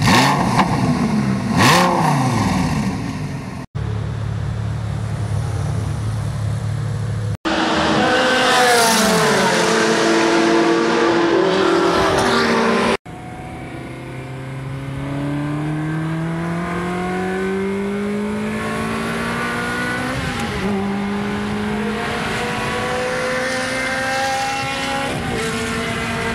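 Supercar engines in a run of short, hard-cut clips: a Lamborghini Gallardo's V10 revved, a steady idle, then engines revving up and down hard. The longest part is heard from inside a Ferrari 360 Spider on track, its V8 climbing in pitch through the gears, dropping back once at a shift about twenty seconds in.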